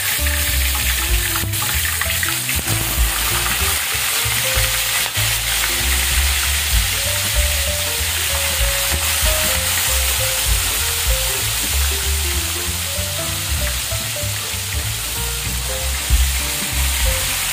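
Blue marlin fish steaks frying in a wok of hot oil, a steady sizzle, with a few light clicks of a utensil against the pan in the first few seconds. Background music with a bass line plays underneath.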